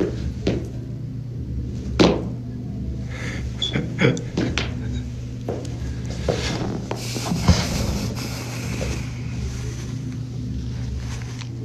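A few knocks and thumps from someone moving right at the phone and sitting down at a table, over a steady low hum. The sharpest knock comes about two seconds in and another about halfway through.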